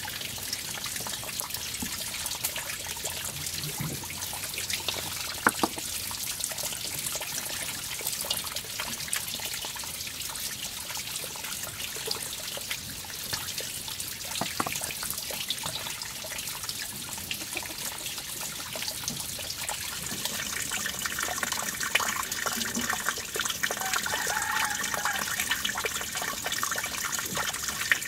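Water trickling steadily, with scattered light ticks and taps over it.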